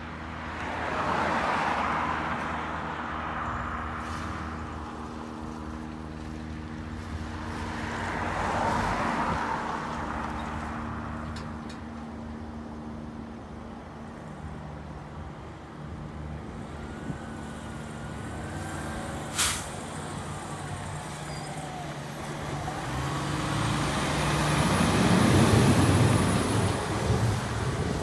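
Fire engine's diesel engine running steadily, with a short, sharp air-brake hiss about two-thirds of the way through. Near the end the engine revs up and grows much louder.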